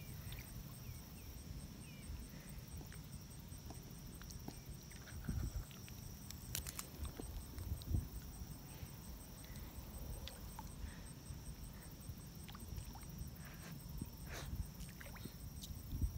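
Wind buffeting the microphone in a steady low rumble, with scattered small pops and splashes of fish taking floating food at the pond's surface.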